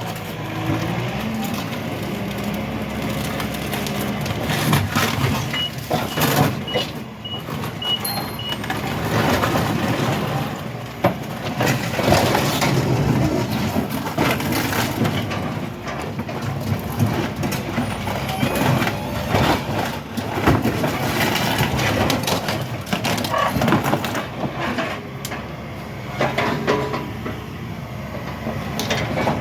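Heavy scrapyard machine running steadily while the body of a scrapped Jeep Compass crunches and bangs under it, with repeated metal knocks throughout. A short run of high beeps comes about six seconds in.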